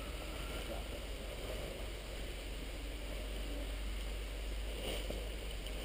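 Steady low rumble of wind on the microphone, with faint outdoor background noise.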